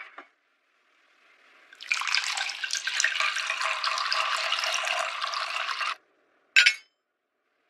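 Red wine poured from a bottle into a wine glass, a steady pour of about four seconds that stops suddenly. A moment later comes one short clink, a table knife on a glass tabletop.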